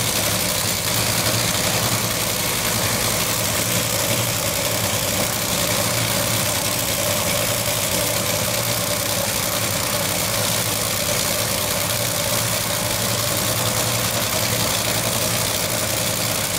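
Top Fuel dragster's supercharged nitromethane V8 idling steadily, a constant rough rumble with no revving.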